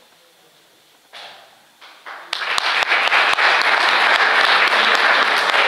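Audience applauding, starting about two seconds in after a near-quiet moment and then going on loudly.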